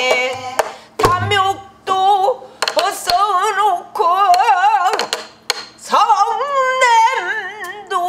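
A woman singing a Korean folk song in full voice with a wide, wavering vibrato, phrase by phrase. She accompanies herself with stick strokes on a buk barrel drum, the sharpest about a second in and around three seconds.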